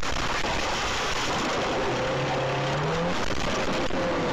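Car on the road heard through a dashcam: steady road and engine noise, with an engine note rising for about a second midway through.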